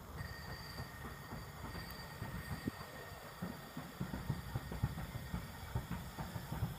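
Low, uneven rumble of wind buffeting the microphone, with small irregular knocks that grow busier about halfway through.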